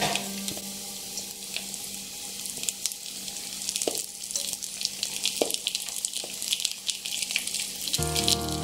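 Marinated oil sardines are laid into hot oil and sautéed onion-ginger-garlic masala in a steel pressure cooker. They fry with a steady sizzle and crackle, with a few soft knocks as pieces go in. Background music comes in near the end.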